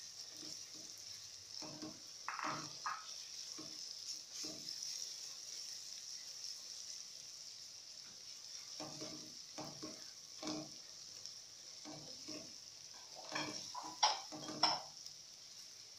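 Onions, carrots, green pepper and garlic-ginger paste frying in oil in an aluminium pot with a steady sizzle, stirred with a silicone spatula that scrapes the pot in short spells of strokes, loudest near the end.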